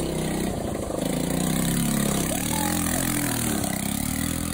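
Small scooter engine running, its pitch rising and falling as the throttle is worked.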